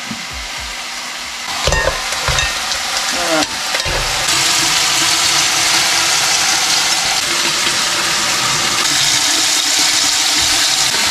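Mud crab and prawns frying in a big saucepan, with a few knocks and clatters about two to three seconds in, then loud steady sizzling from about four seconds on.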